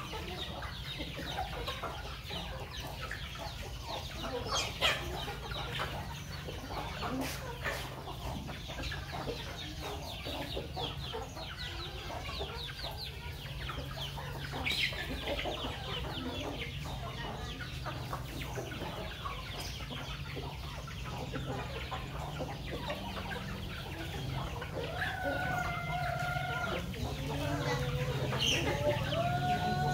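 A flock of chickens clucking as they feed. Near the end a rooster crows with long held calls.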